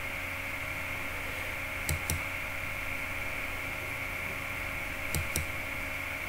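Two pairs of short sharp clicks, about three seconds apart, like keys or buttons on a computer, over a steady hiss and hum from the microphone.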